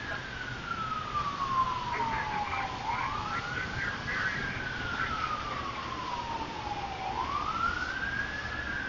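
A siren wailing: its pitch rises over about a second and a half, then falls slowly over about three seconds, about two full cycles.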